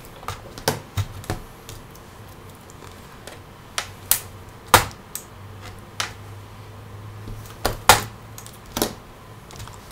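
Plastic retaining clips of a Toshiba Satellite Pro R50-B laptop's bottom cover snapping loose as the cover is pried off: about nine sharp, irregularly spaced clicks, the loudest about five and eight seconds in.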